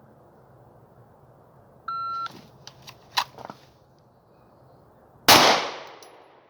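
Shot-timer start beep, then a few faint clicks and rustles of a pistol being drawn, then a single loud shot from a striker-fired handgun with a decaying echo about three and a half seconds after the beep.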